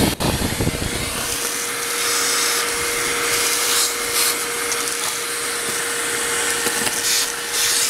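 A small motor driving a steady rush of air, running continuously, with a steady hum that settles in after about a second and a half.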